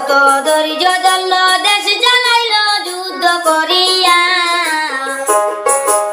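Music: a high voice singing a long melodic line with wavering pitch over instrumental accompaniment.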